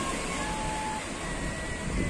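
Surf washing onto a sandy beach, a steady rush of waves. A couple of faint, thin held whistle-like tones sound over it.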